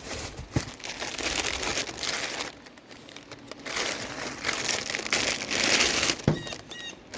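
Plastic packaging crinkling and rustling as items are handled and unwrapped, in two long stretches, with a few short high chirps near the end.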